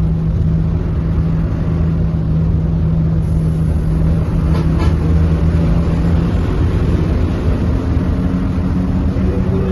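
Tour bus engine running under load, heard from inside the cab as a steady drone over road noise; its pitch steps up about seven seconds in as the bus speeds up.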